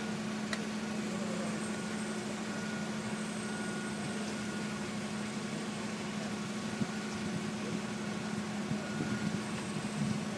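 Forklift idling with a steady, unchanging hum.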